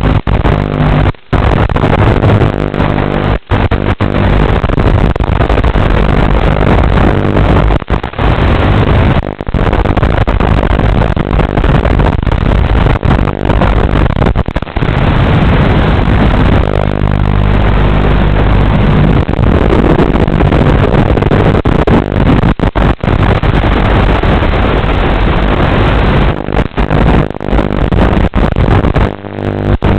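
HGLRC Batman 220 racing quadcopter's motors and propellers whirring in flight, heard over the analog FPV video link, with several brief dropouts where the signal breaks up.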